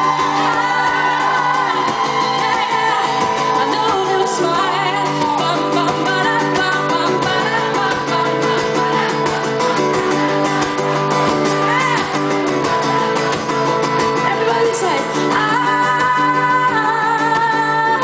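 A woman singing live while playing an acoustic guitar, her voice holding long notes and sliding up and down in pitch.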